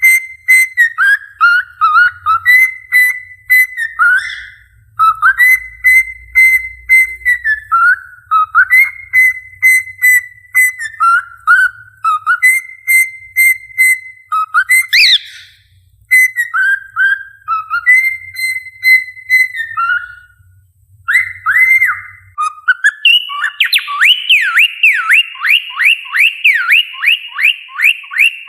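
A cockatiel whistling a tune in short repeated phrases, each a held note that drops into a few lower notes. About two-thirds through it changes to a fast trill swinging up and down about three times a second.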